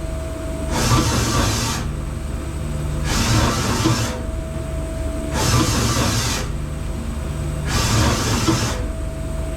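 Mazak Variaxis i-800 five-axis machining center running through its axis moves: four rushing bursts of axis travel, each about a second long and about two seconds apart, over a steady machine hum, with a faint steady tone in the pauses between moves.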